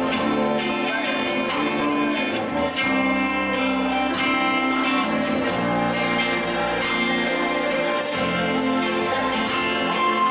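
Live worship band music with guitar and singing.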